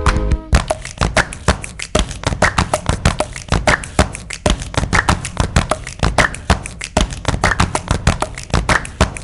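Fast rhythmic percussion music: a dense run of sharp taps over low thumps, several strokes a second, with no pitched instruments. A held chord from the music before it cuts off about half a second in.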